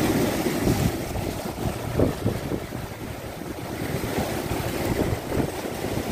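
Sea surf washing over and around shoreline rocks, a steady rushing with rising and falling surges, the loudest about two seconds in, with wind buffeting the microphone.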